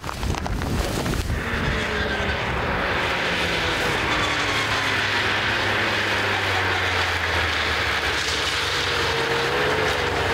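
Yamaha snowmobile engine running as the machine drives across the snow and passes close by, its pitch dipping and rising a little. Wind buffets the microphone for about the first second.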